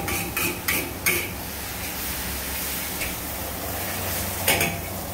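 Metal wok spatula clanking and scraping against a wok a few times, then the steady sizzle of noodles stir-frying over a running gas wok burner, with one more clank near the end.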